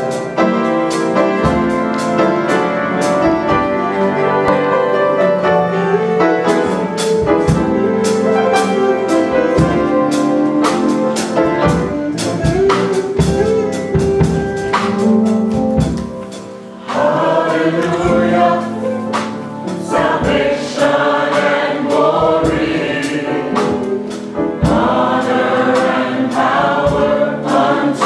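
Gospel choir singing together in harmony, with a sharp regular beat behind the voices. The singing drops away briefly about sixteen seconds in, then comes back in.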